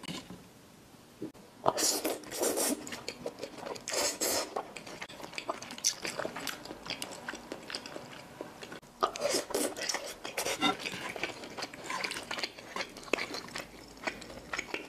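Close-miked eating sounds: wet, crackly chewing and biting of saucy stir-fried rice noodles and chicken, in irregular bursts of clicks and squelches.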